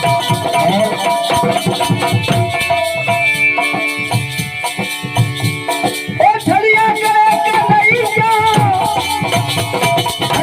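Instrumental interlude of a bhajan: hand-drum and shaker rhythm with held chords, then a wavering melodic line that comes in about six seconds in.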